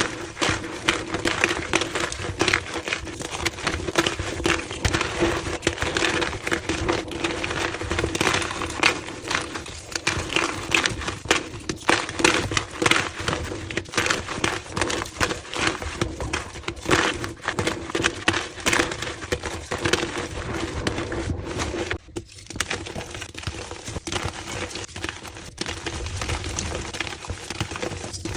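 Gym chalk being crushed and crumbled: a dense, continuous run of crunchy, crackly snaps, played at double speed, over a low steady hum. The crunching breaks off briefly about 22 seconds in.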